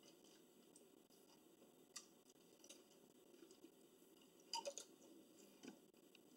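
Near silence with faint eating sounds: a few soft clicks and ticks of food being handled and chewed, the clearest small cluster about four and a half seconds in.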